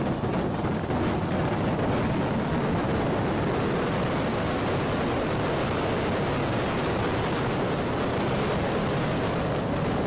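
Steady, dense clamour of a crowd scrambling around wooden tubs of rice wine, scooping it out with buckets and basins.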